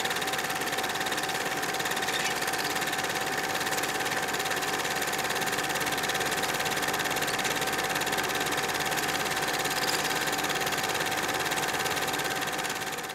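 Cine film projector running: a steady, rapid mechanical clatter over a constant hum, fading out near the end.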